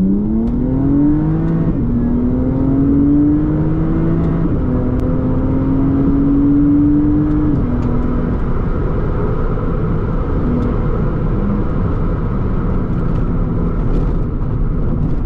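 BMW Z4's 3.0-litre six-cylinder engine heard from inside the cabin, revving hard as the car accelerates, then shifting up three times in the first eight seconds, with a drop in pitch at each shift. After that the engine note fades under steady road and tyre noise as the car cruises. The car is being driven in manual mode.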